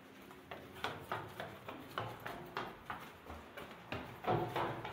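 Footsteps climbing a flight of stairs, a regular run of short knocks about three a second, a little louder near the end.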